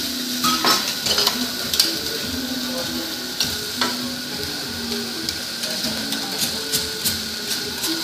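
Shrimp and scallops sizzling on a hot teppanyaki steel griddle, a steady frying hiss. Several sharp clicks and scrapes of a metal spatula and fork against the plate.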